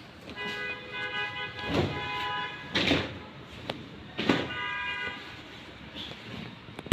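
A vehicle horn honking twice, a long steady blast and then a shorter one, with three loud knocks in between.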